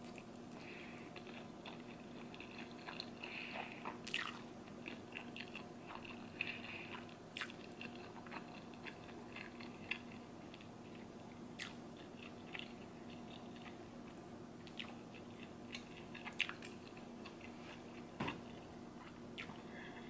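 Close-up eating sounds of a person biting and chewing black bean noodles, with many irregular wet mouth clicks and smacks.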